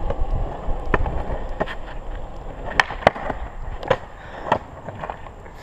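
Longboard rolling downhill on asphalt: a steady rumble of urethane wheels on the road surface, with sharp clicks and knocks scattered through it, easing off a little toward the end.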